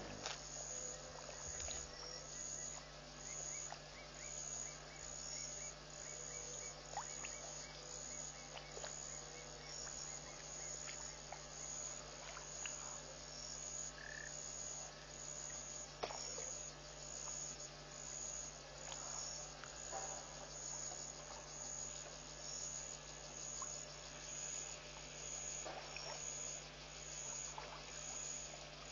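Night chorus at a waterhole: an insect, likely a cricket, chirps high and steadily a bit more than once a second, with scattered short frog calls. A steady low hum runs underneath.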